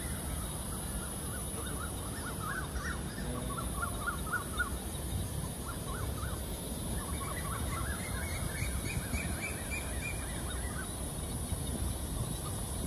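Birds calling in repeated runs of short, chattering notes, over a steady high hiss and a low background rumble.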